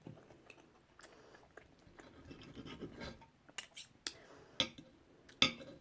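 Eating from a plate: cutlery scraping quietly, then several sharp taps and clicks on the plate in the second half.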